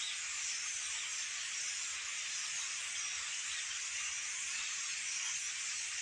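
A large flock of small birds calling in flight overhead: a dense, continuous, high-pitched twittering of many overlapping chirps.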